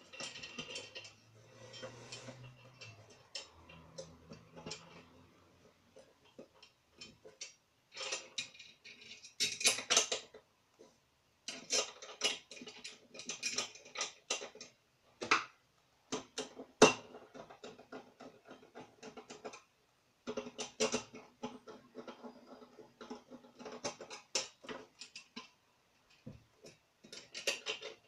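Solid brass bulkhead light fixture handled and fitted together: irregular metal clicks, knocks and clinks of its brass body, cage and glass cover, with one sharper knock about two thirds of the way through.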